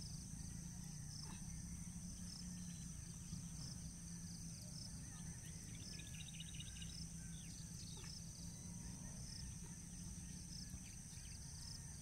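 Faint outdoor chorus of birds chirping in short scattered calls over a steady high insect buzz, with a low steady rumble underneath.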